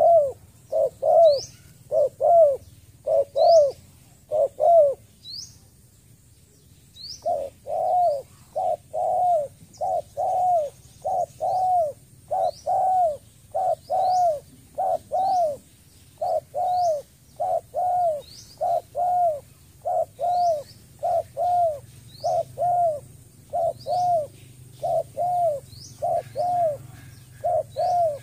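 Spotted dove calling in a rapid series of short, arching coos, about one or two a second, broken by a pause about five seconds in. A small bird's high, thin upward chirps come every second or two behind it.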